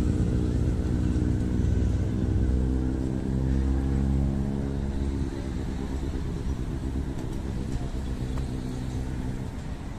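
Street traffic with a motorbike engine running, its low hum louder in the first half and fading about halfway through.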